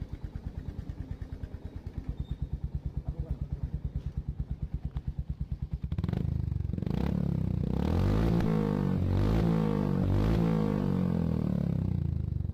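Royal Enfield Hunter 350's single-cylinder engine running through an aftermarket Red Rooster silencer, idling with an even thump. From about six seconds in it is revved repeatedly, the exhaust note rising and falling.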